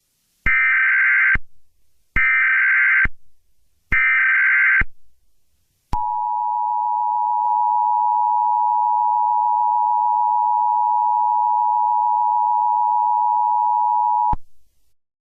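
Emergency Alert System tones: three short bursts of screechy digital SAME header data, each about a second long, then the steady two-tone EAS attention signal (853 and 960 Hz) held for about eight seconds before it cuts off.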